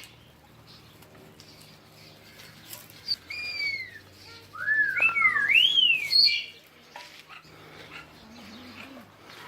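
A bird calling: a run of high, arching whistled calls, each rising and falling in pitch, about three to six and a half seconds in.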